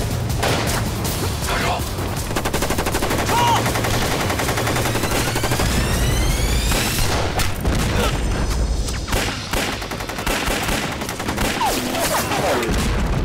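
Staged battle sound for a war film: dense rapid gunfire, rifle and machine-gun fire without a break, over a heavy low rumble of explosions, with men shouting.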